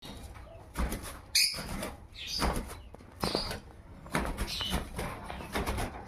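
Cockatiels giving short chirping calls, three or so brief ones, amid repeated rustling and fluttering of feathers and wings.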